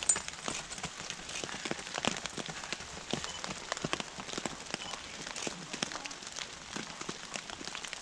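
Rain falling: a steady hiss with many irregular sharp taps of drops landing close by.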